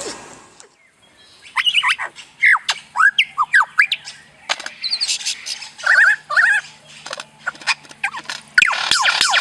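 Bird chirping, a string of short calls that each sweep down in pitch. From about eight and a half seconds in, a louder, busier burst of chirps and clicks.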